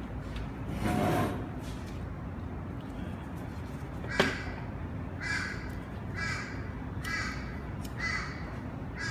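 A bird calls five times, about a second apart, in the background. A lighter clicks once about four seconds in, and paper rustles briefly near the start.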